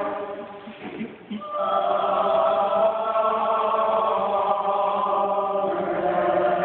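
A small church choir singing a hymn, breaking off briefly near the start and then coming back in on long held notes.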